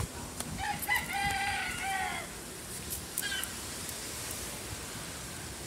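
A rooster crowing once, about a second and a half long, with a falling end, followed about a second later by a brief, higher call. A steady, watery hiss runs underneath.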